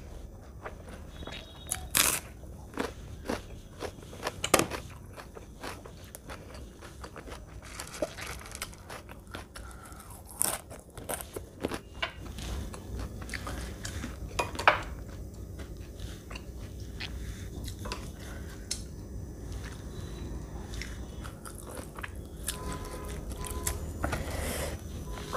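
Close-miked eating sounds: biting and chewing with crunchy bites, mouth smacks and sharp clicks scattered throughout. Near the end, fingers mix rice with dal and potato with soft squelching.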